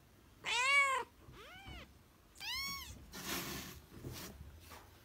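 A young kitten mewing three times: short, high mews that each rise and fall, the first the loudest. A brief rustling noise follows, about three seconds in.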